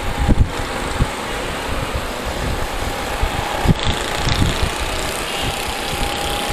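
Yamaha YBR 125 single-cylinder four-stroke motorcycle running at riding speed, with wind rumbling irregularly on the camera microphone.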